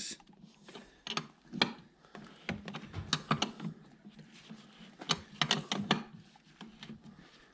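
A socket ratchet clicking in short, irregular runs, with metal tool clinks, as bolts on a trolling-motor mount are turned.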